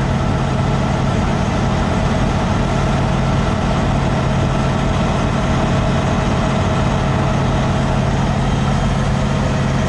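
Freshly rebuilt Cummins ISX15 heavy-truck diesel engine idling steadily, heard close up under the open hood, with an even low hum.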